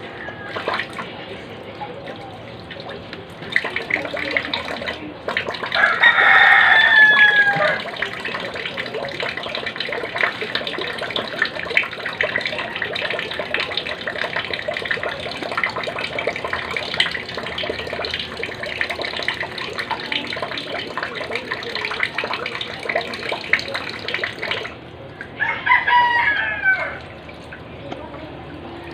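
Water running from a tap into a sink while hands are washed, starting a few seconds in and stopping suddenly near the end. A rooster crows twice: loudly a few seconds in, and again just after the water stops.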